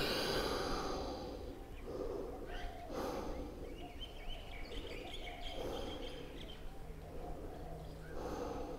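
A person breathing heavily while resting in child's pose after a vinyasa flow: a long exhale at the start, then several shorter breaths, close to a clip-on microphone.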